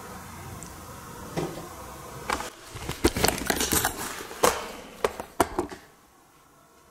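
An irregular run of sharp knocks and clatters, sparse at first and then a rapid cluster in the middle, with a few last knocks before the background hiss suddenly falls away.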